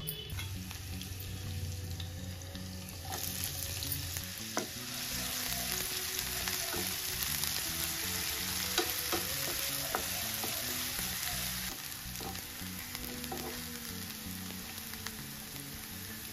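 Chopped garlic and onion sizzling in hot oil in a nonstick frying pan while a spatula stirs them, with a few sharp taps of the spatula on the pan. The sizzle gets louder about three seconds in.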